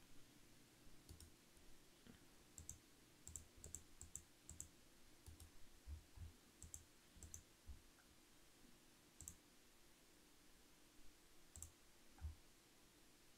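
Near silence with faint computer mouse clicks, about a dozen scattered irregularly and bunched in the middle, over a low steady hum.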